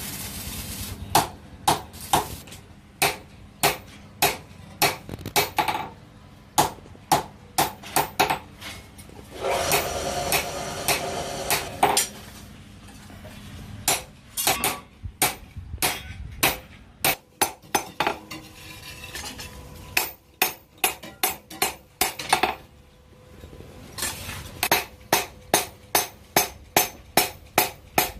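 Hand hammer striking steel on an anvil while forging a knife blade, in runs of sharp ringing blows about two to three a second. There is a stretch of about two seconds of continuous harsh noise near ten seconds in.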